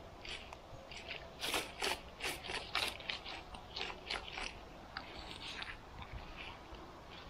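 Crunching and scraping: a quick run of short strokes, loudest a little over a second in, then thinning out to fainter ones.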